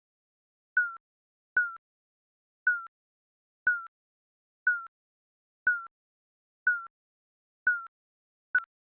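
Countdown timer's digital beep: a short high blip with a slight downward slide and a click, repeating about once a second.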